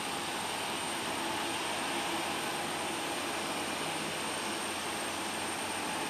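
Jet engines of an Airbus A320 heard from a distance as it rolls out on the runway after landing: a steady, even rushing noise with a faint high whine.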